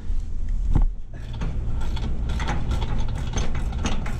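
Metal clicking and knocking as a three-jaw gear puller is worked to draw a bearing off a blower shaft, the clicks coming thick and fast over the second half, over a steady low rumble.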